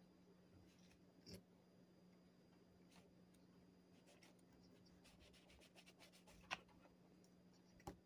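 Near silence with a steady low hum, broken by faint taps and scrapes of a fork against the plate as the donut is cut and picked up. There is a quick run of fine scratchy clicks about five seconds in, and the sharpest tap comes about six and a half seconds in.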